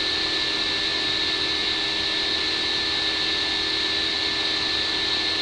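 Steady hiss with a faint constant hum underneath, unchanging throughout, with no clicks or other events.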